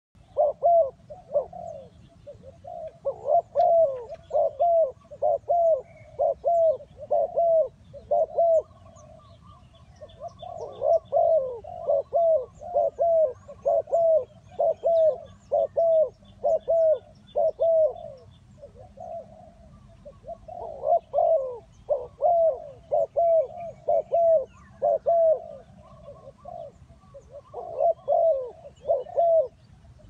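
Spotted dove cooing: short, falling coo notes repeated about twice a second in runs of several seconds, with brief pauses between runs. Faint high chirps of small birds in the background.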